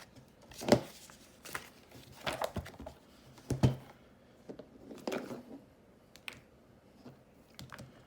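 Handling sounds of coins in plastic holders and catalogue paper on a table: a series of sharp clacks and short rustles, about one every second, the loudest a little under a second in.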